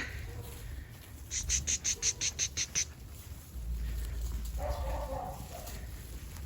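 A quick run of about ten sharp, high clicks, then a sheep bleats once briefly, about five seconds in.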